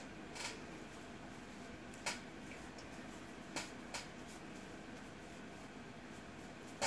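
Quiet room tone broken by a handful of short, sharp clicks, spaced irregularly, the loudest near the end.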